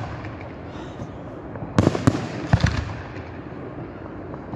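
Fireworks display: a volley of several sharp bangs in quick succession about two seconds in, with a steady hiss between volleys.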